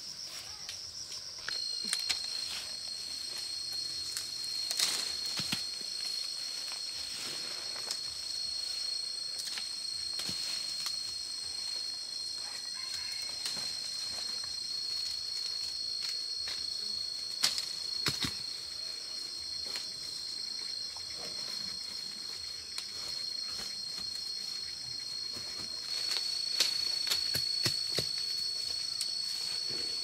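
A steady, high-pitched insect chorus, several held tones at once, with another tone joining about a second and a half in. Occasional sharp clicks and rustles sound over it.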